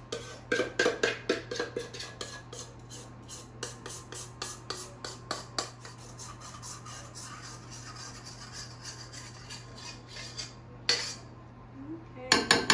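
A spoon scraping cake batter out of a stainless steel mixing bowl: quick repeated scrapes and taps against the metal, thinning out after about six seconds, with a couple of louder knocks near the end.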